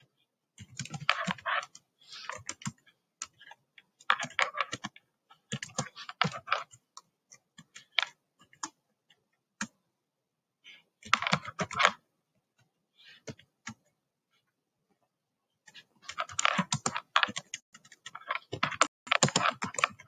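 Typing on a computer keyboard: quick runs of key clicks separated by short pauses, with a longer break near the middle.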